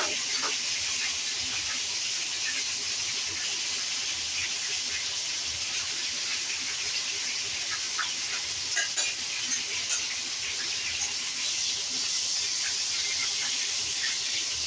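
Black bass fish frying in hot grease in a pot: a steady sizzle with scattered small pops and crackles, a few sharper ones about eight to ten seconds in.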